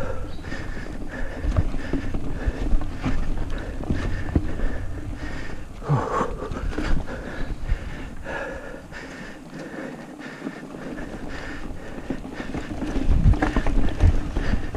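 Mountain bike rolling fast over dirt singletrack: tyres on dirt and the frame and drivetrain rattling, with frequent knocks over bumps and roots, wind on the camera microphone, and the rider breathing hard. It goes quieter for a couple of seconds about two-thirds of the way through.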